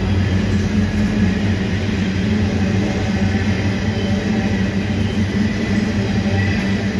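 Empty grain hopper wagons of a freight train rolling past at steady speed: a continuous low rumble of steel wheels on the rails.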